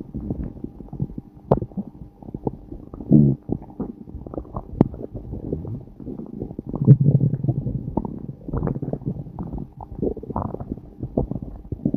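Human stomach growling: irregular low gurgling rumbles broken by many small bubbly pops and clicks, with a stronger rumble about three seconds in and a longer, deeper one about seven seconds in.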